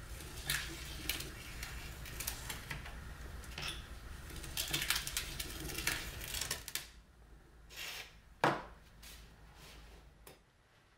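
Light clicks and scrapes of a steel straightedge being set down, pressed and slid over taped veneer sheets on a cutting mat, over a low steady hum. One sharper click comes about eight and a half seconds in.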